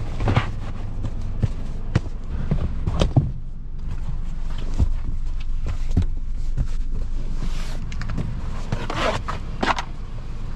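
Car floor mats being pulled out of the footwells and handled: scattered knocks, scuffs and rustling of rubber and carpet mats, over a steady low rumble.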